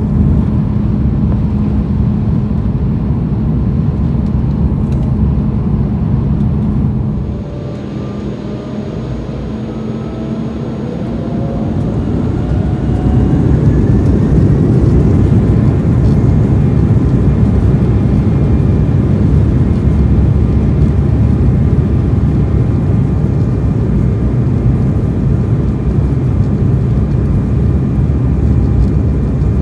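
Airliner engines heard from inside the cabin, spooling up for takeoff. A steady low drone dips briefly, then from about eight seconds in a rising whine climbs over several seconds. After that the engines run loud and steady at takeoff power.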